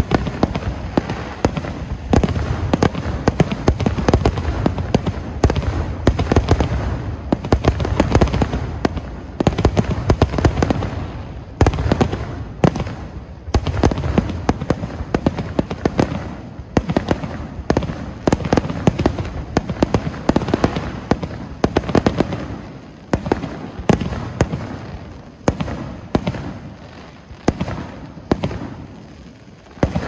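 Fireworks show: a dense, rapid barrage of aerial shell bursts, bang after bang, thinning out and growing quieter over the last few seconds.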